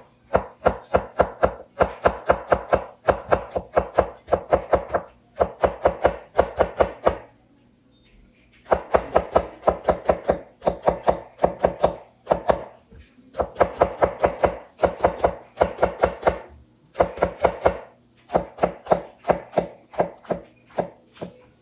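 Kitchen knife chopping rapidly on a cutting board, about five even strokes a second, in runs of several seconds with short pauses between them: close, fine cuts scored along an eggplant in the suoyi (coir-raincoat) knife technique.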